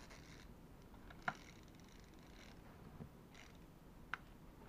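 Quiet handling of a small plastic clockwork toy car, with two sharp plastic clicks, one about a second in and one about four seconds in as the car is set down on the table.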